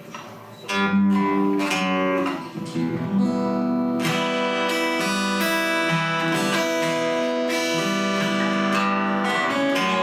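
Acoustic guitar playing a song's instrumental intro: a few ringing notes start about a second in, then steady playing from about three seconds in.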